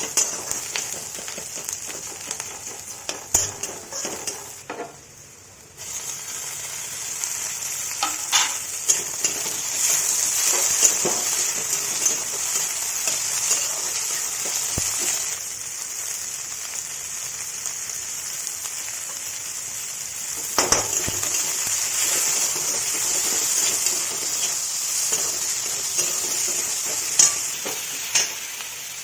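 Moringa leaves frying in a pan, with a steady sizzle and a utensil scraping and knocking against the pan as they are stirred. The sizzle briefly drops away about five seconds in, then resumes.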